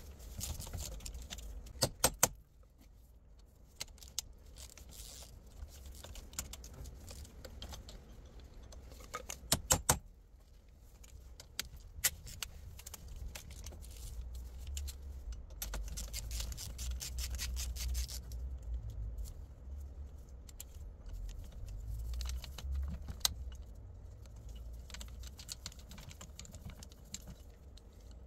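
Metal hand tool clicking and clinking against a Toyota MMT gear-shift actuator while its motor is being unscrewed. There are two quick clusters of sharp clicks, about two seconds in and near ten seconds, with scattered lighter ticks and a low rumble in between.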